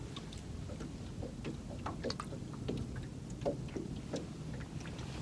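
Water lapping and splashing lightly against the hull of a small fishing boat, in small irregular splashes over a low steady rumble.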